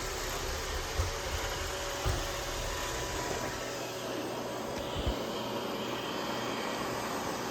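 Roomba robot vacuum running with a steady whir from its motors and brushes, with a few soft low thumps.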